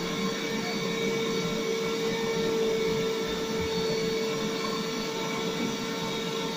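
Electric lever-arm citrus juicer running with a steady motor whir as an orange half is pressed down onto its spinning reamer.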